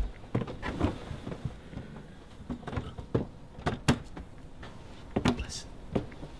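About six sharp knocks and thumps at irregular intervals, the strongest nearly four seconds in, with quiet whispering between them.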